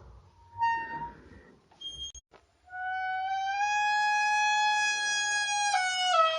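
Elephant trumpeting: a short call about half a second in, then a long, drawn-out trumpet from near the three-second mark that holds one pitch and steps slightly lower near the end.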